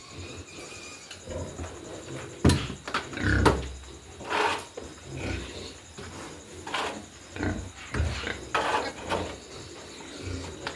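Pigs grunting in short, irregular bursts, with a sharp knock about two and a half seconds in.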